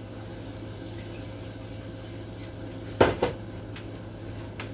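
Kitchenware clattering once, sharply, about three seconds in, with a couple of lighter clicks near the end, over a steady low hum.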